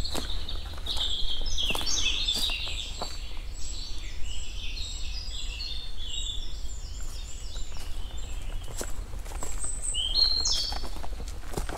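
A songbird singing a long run of quick, high chirping notes that breaks off about eight seconds in and comes back briefly near the end, over footsteps and scattered clicks.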